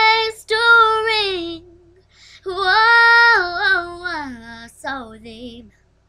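A young girl singing a slow ballad unaccompanied, drawing out two long held notes and then a run of shorter notes that break off just before the end.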